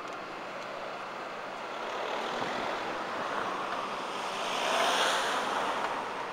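Road traffic passing: a steady hiss of tyres and engines, with one vehicle swelling past about five seconds in.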